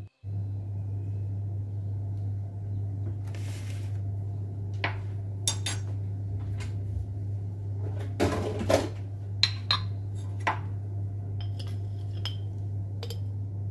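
Scattered clinks and knocks of metal kitchen utensils and dishes being handled, a few at a time with a short cluster about two-thirds of the way in, over a steady low hum.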